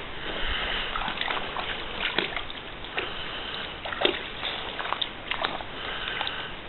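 Breathing close to the camera microphone, with scattered footsteps and brush crackling underfoot, over the wash of a small creek's running water.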